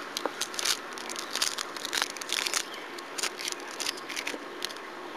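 Irregular crinkling and rustling clicks of hands handling and picking at a blown-open, scorched stuffed toy.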